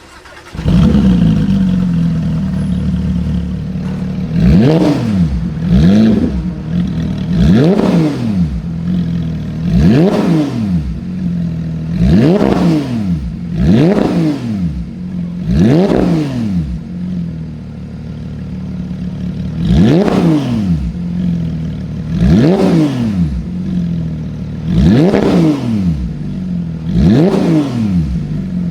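A performance car engine starts about half a second in and settles to a fast idle. It is then revved in repeated short throttle blips, about one every two seconds, each rising and falling in pitch.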